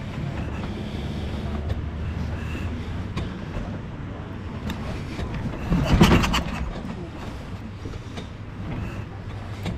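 1937 Matchless Model X's big side-valve V-twin running steadily, with a louder surge about six seconds in.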